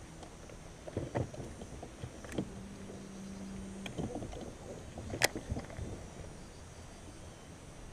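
Knocks and clunks on a fishing boat, the sharpest about five seconds in, over a low rumble, with a steady hum for about a second and a half near the middle.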